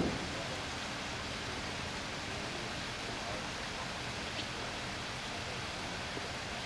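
Steady, even hiss of light rain.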